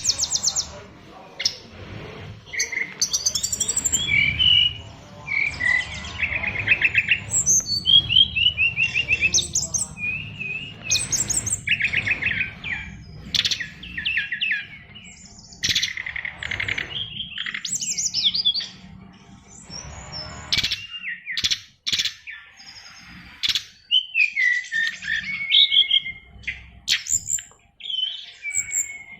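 A caged SRDC songbird (sikatan rimba dada coklat, a jungle flycatcher) singing a long, varied song of quick chirps, trills and whistled phrases packed with mimicked calls, the full 'isian' that bird-song keepers prize. A low steady hum sits under the song and stops about two-thirds of the way through.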